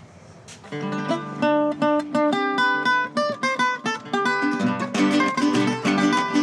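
Acoustic plucked string instruments start playing together about a second in: a picked melody over strummed chords and bass notes. This is the instrumental string backing of a Colombian campesino song, played without voice or guacharaca.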